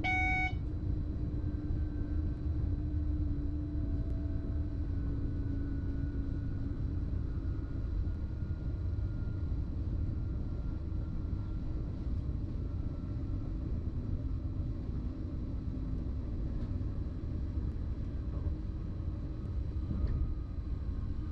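BLS RABe 515 'MUTZ' electric multiple unit running, heard from inside the driver's cab: a steady low rumble with a faint whine that slowly falls in pitch over the first dozen seconds. A short electronic beep sounds right at the start, the last of three.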